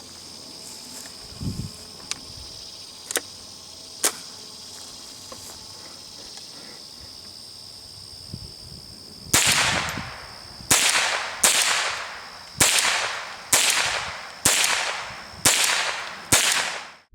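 Henry AR-7 semi-automatic .22 LR survival rifle fired eight times, about one shot a second, starting about nine seconds in. Each crack has a short echoing tail. Before the shots there are a few light clicks, and a steady insect chirring runs behind.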